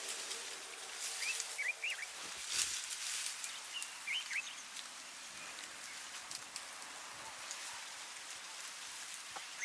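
Open-air natural ambience: a steady faint hiss with soft rustles, and a small bird's short twittering chirps about a second in and again around four seconds.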